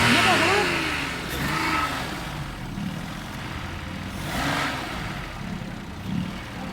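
Suzuki car's petrol engine idling, with hissy bursts near the start and about four and a half seconds in. Its purge canister valve is stuck open and leaking fuel vapour into the engine, the fault the mechanic blames for the rough, unsteady idle.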